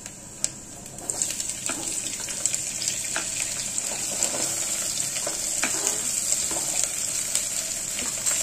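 Sliced onions, shallots, green chillies and curry leaves tipped into hot coconut oil in an aluminium pressure cooker, setting off a frying sizzle that swells about a second in and keeps going, with scattered light clicks.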